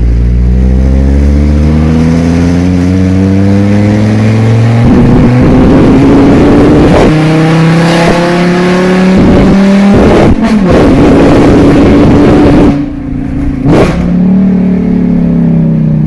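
Fiat Marea HLX's five-cylinder engine running very loud with no exhaust muffling, accelerating hard. Its pitch climbs and drops back several times as it pulls through the gears, and it eases off near the end.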